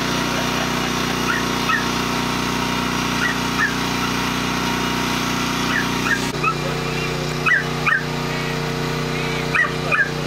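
Crated dogs yipping and whining in short, high, rising yelps, often two at a time, over a steady engine hum.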